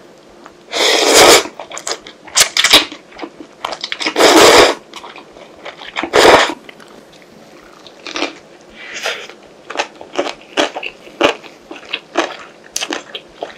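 Close-miked eating of instant ramen: three loud, drawn-out slurps of noodles and broth in the first six seconds, then a run of short, quick, wet chewing sounds.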